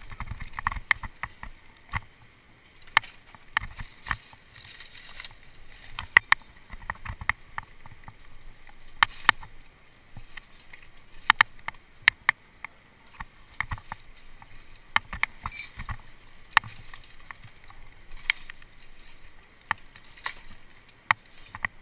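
Close rustling and scuffing through dry leaves and rock, with many irregular sharp clicks and knocks from climbing rope and gear being handled.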